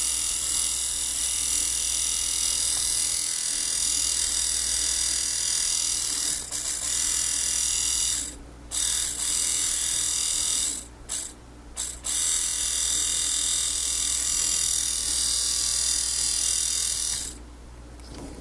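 Repaired 2006 Subaru Outback rear wiper motor running with its gearbox open, the motor whirring steadily and its gears meshing as they swing the wiper drive back and forth. It stops briefly three times, about 8, 11 and 12 seconds in, and cuts off near the end.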